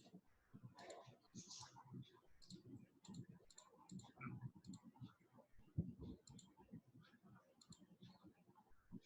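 Faint, irregular clicking of a computer mouse, many clicks spread through, with one sharper click a little before the sixth second.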